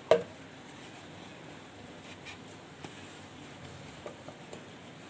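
A hand kneading yeast bread dough in a plastic bowl: soft squishing and patting with a few faint ticks. A single sharp knock just after the start is the loudest sound.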